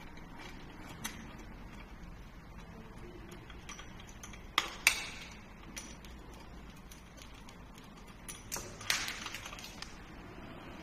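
Sharp metallic clicks and clinks of hand tools and small metal parts against an e-bike's front fork as it is being fitted. The two loudest clicks come a little under halfway through, with a quick cluster of clinks near the end.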